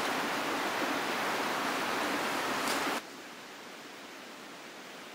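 Steady rushing of a river running high with snowmelt. About three seconds in it drops suddenly to a fainter steady hiss.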